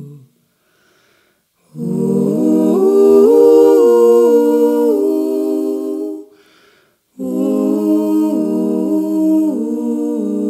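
A small group of women's voices singing a cappella in close harmony, held chords whose notes move in steps. A phrase starts about two seconds in and breaks off after about four seconds. A second phrase follows after a pause of about a second.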